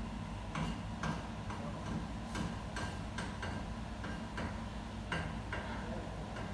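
Kitchen ambience: a steady low hum under irregular light clicks and knocks, about two a second, from utensils being handled at a work counter.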